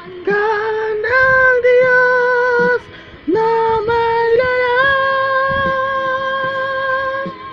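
A high singing voice holding long notes that step upward, with a short break near the middle and one long held note near the end, over quiet background music.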